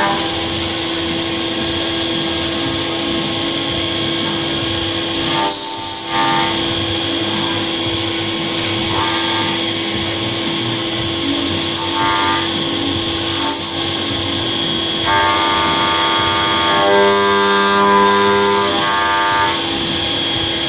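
A CNC machine tool running with a steady whine, while music chords in an organ-like sound come and go over it, strongest in the second half.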